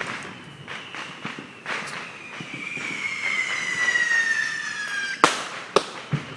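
Neighbourhood fireworks popping and banging. A whistling firework gives a long whistle that slowly falls in pitch for about three seconds, then ends in a sharp loud bang; a couple more bangs follow.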